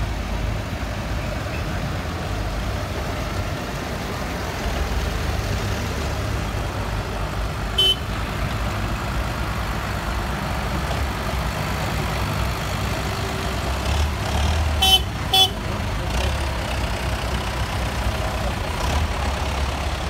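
A convoy of tractors driving past, their diesel engines making a steady low rumble. A vehicle horn toots briefly about eight seconds in, then twice in quick succession about fifteen seconds in.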